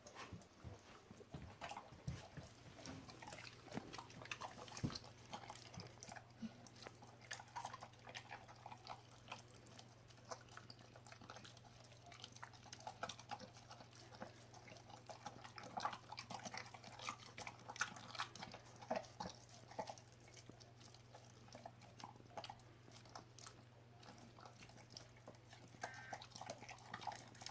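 A German Shepherd dog chewing raw chopped chicken, with irregular small clicks and crunches throughout.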